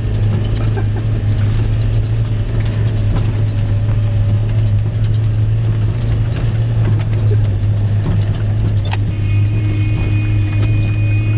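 Jeep engine running at a steady speed, a strong low, even hum. About nine seconds in there is a click, then a thin, steady high tone joins the hum.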